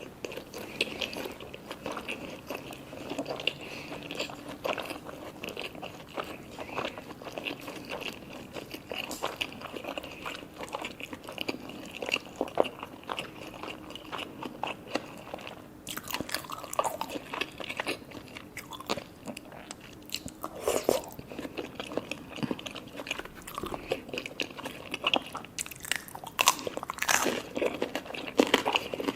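Close-miked eating of sushi cones (temaki hand rolls): continual crunching bites and chewing, with louder bites a little past halfway and again near the end.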